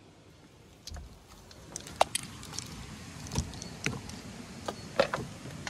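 Scattered knocks and clicks, about half a dozen, sharpest about two seconds in and again near the end, as someone moves about inside a camper and steps out its door onto the metal step.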